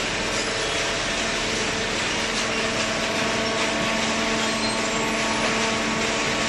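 Industrial cardboard shredder and baler machinery running: a steady machine hum under a constant rushing noise, with a few faint crackles.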